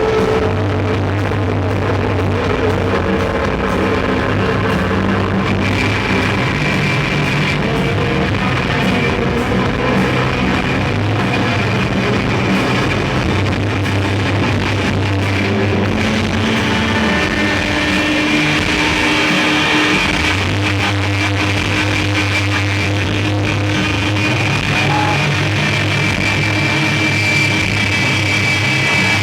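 Live rock band playing a loud, chaotic noise passage of droning electric guitars, with long held tones over a dense wash of sound and no steady beat.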